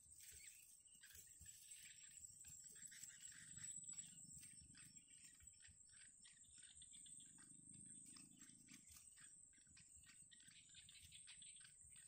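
Faint ticking and rustling at a reed-bed nest of bittern chicks, over a steady thin high tone.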